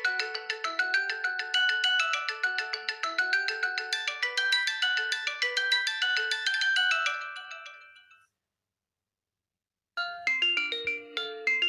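Xiaomi Redmi 6A stock MIUI ringtone: a quick, bright melody of short ringing notes that fades out about eight seconds in. After a couple of seconds of silence, the next ringtone's melody begins.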